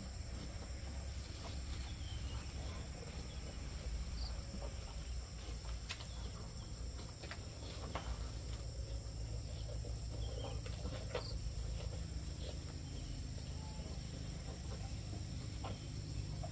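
Steady high chirring of insects, with faint scattered clicks and knocks as a Simmental bull eats mash from a plastic bucket.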